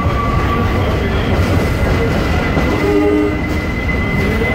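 New York City subway train running, a loud low rumble with a steady high-pitched whine over it and brief mid-pitched tones about three seconds in.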